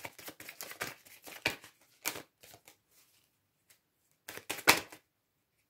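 Tarot cards being handled and drawn from the deck: a quick run of papery flicks and clicks, a pause, then another short burst of them near the end.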